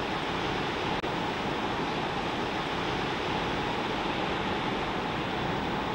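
Steady, even wash of breaking ocean surf on a beach break, with no single wave standing out, and a very short dropout about a second in.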